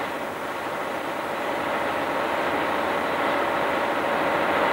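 Tatra 813 heavy truck's air-cooled V12 diesel running steadily as the truck drives, heard from the cab, growing slightly louder. The sound is dull, as on an old film soundtrack.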